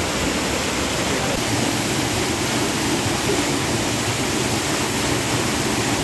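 Small mountain waterfall plunging into a rock pool: a loud, steady rush of falling water.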